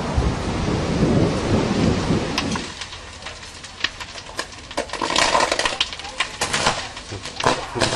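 Deep rumbling thunder that cuts off abruptly under three seconds in, followed by the sharp crackling and popping of a house fire burning.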